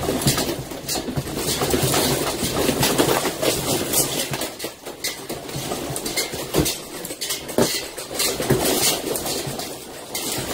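Objects on shelves and furniture rattling and clattering as a room shakes during an earthquake, a dense run of small knocks over a low rumble.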